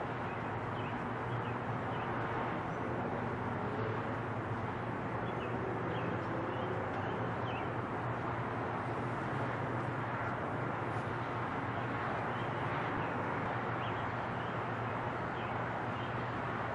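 Steady outdoor rumble with a low hum, and small birds chirping in short calls every second or so over it.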